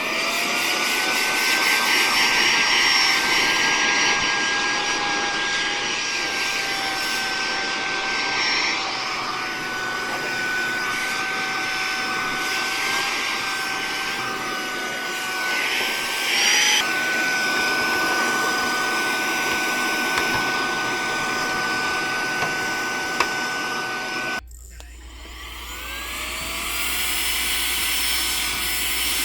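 Brushless motor of a CHOLANG cordless handheld vacuum-blower running at full speed, a steady high whine over a rush of air. About 17 s in the pitch jumps briefly and settles slightly lower. About 24 s in it cuts off abruptly, then spins up again with a rising whine back to full speed.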